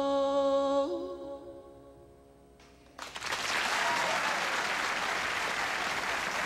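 The song's last sustained chord fades away. About three seconds in, a studio audience breaks into applause that continues steadily.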